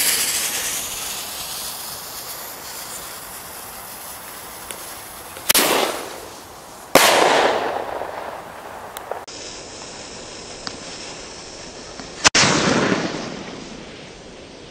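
Thunder Kong Max bomb tube firing: the lit fuse hisses as it throws sparks, then about five and a half seconds in the lift charge fires, and a second and a half later the shell bursts with a loud bang that echoes for over a second. Another sharp bang with a long echoing tail comes about twelve seconds in.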